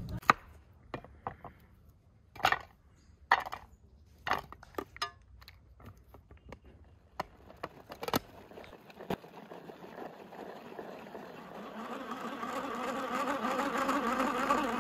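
A kitchen knife cutting through onion onto a wooden board, several sharp chops in the first few seconds. In the last few seconds, a pull-cord manual food chopper whirs louder and louder as its cord is pulled over and over, mincing the onion.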